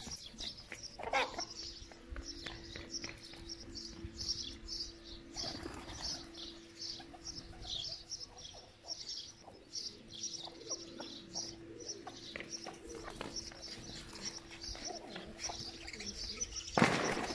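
A flock of domestic pigeons cooing and flapping their wings, over a steady patter of short, high chirps and a faint steady hum. Near the end comes a loud clatter of wingbeats.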